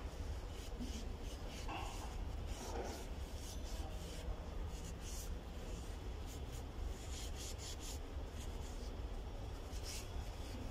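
A rag rubbing and wiping inside a metal throttle body as it is cleaned, in many short, irregular scuffing strokes.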